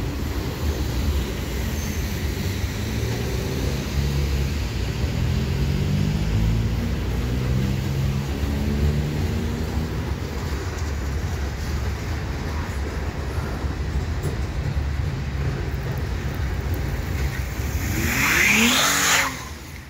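Freight train cars rolling steadily across a railway bridge with a continuous low rumble, and cars driving past on wet pavement. Near the end a car passes close and accelerates loudly, then the sound drops off suddenly.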